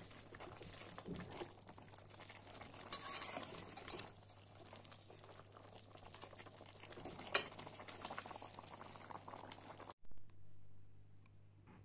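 Potato and dried-fish curry bubbling in an aluminium kadai while a metal spatula stirs it, with a few sharper scrapes of the spatula on the pan. The sound drops away about ten seconds in.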